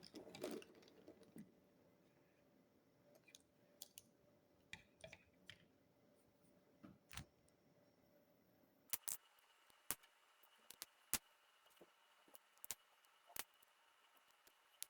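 Faint, scattered clicks of plastic LEGO pieces being handled, about a dozen sharp ticks at irregular intervals over near silence.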